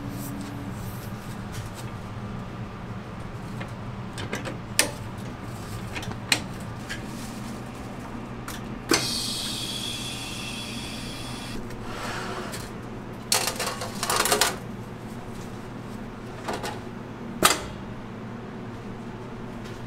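A stainless pneumatic donut dough dispenser being loaded and worked: sharp metal clicks and clanks of its hopper lid and fittings, one followed by a hiss of compressed air lasting about three seconds near the middle, and a short metal rattle later on, over a steady low machine hum.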